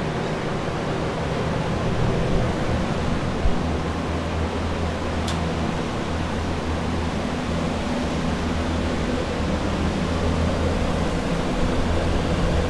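Water-damage drying equipment, commercial dehumidifiers and an air mover, running steadily: an even rushing noise over a low hum. A single faint click about five seconds in.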